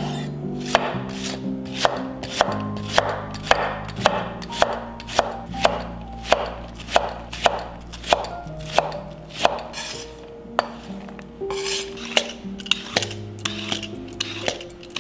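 Chef's knife chopping red onion on a wooden cutting board, with steady strokes about two a second, over background music.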